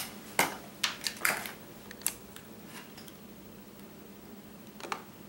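Light clicks and knocks of an APM 2.8 flight controller board and its wires being handled and turned onto its side on a tabletop: several in the first two seconds, then one more near the end, over a faint steady hum.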